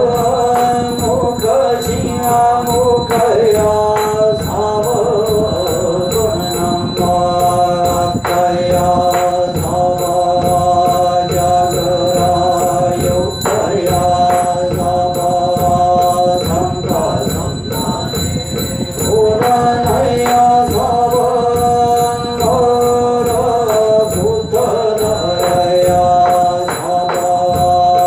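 Korean Buddhist yeombul chanting: a monk leads and the congregation's voices join in, holding long notes that step from pitch to pitch, with fast rhythmic striking beneath.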